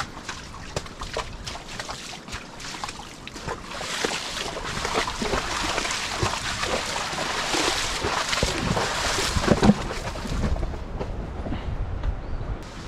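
Horse's hooves walking through mud and muddy water: separate hoof falls at first, then a denser stretch of sloshing and splashing through the middle.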